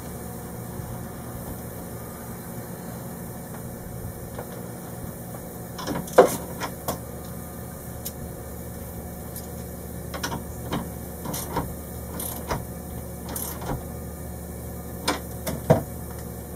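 Hands working a wiring harness into place: scattered clicks and knocks of cable and fittings being handled, the sharpest about six seconds in and again near the end, over a steady low hum.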